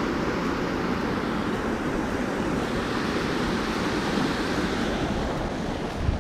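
Water rushing over a small river weir and through its sluice: a steady, even rush of falling white water.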